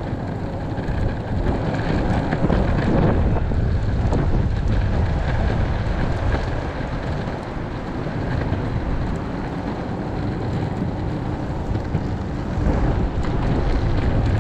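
Strong wind buffeting the action-camera microphone: a loud, gusting rumble with no clear pitch.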